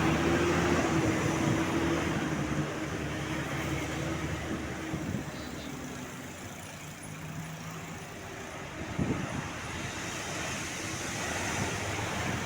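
Tour bus engine running hard as it climbs the hill and passes, a steady drone that is loudest at first and fades away over the next several seconds. Another vehicle's engine rises briefly near the end, with road noise throughout.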